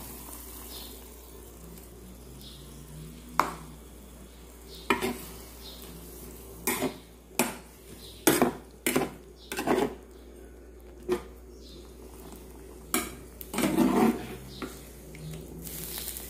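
A spoon knocking and scraping against a black electric skillet as long beans in a soy sauce and vinegar broth are stirred. The sharp, irregular knocks come thickest past the middle, over a low steady background.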